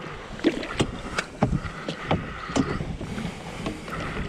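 Irregular knocks and clicks of gear being handled in a small boat, with a brief thin tone about halfway through, as a large pike is held in a landing net over the side.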